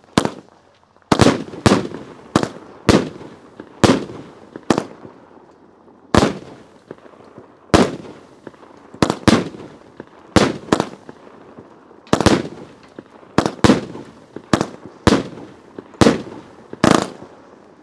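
A Memory Fireworks Dakota Northern 200-gram consumer firework cake firing shot after shot: a string of about twenty sharp, loud bangs, spaced roughly half a second to a second and a half apart, some in quick pairs, each trailing off briefly.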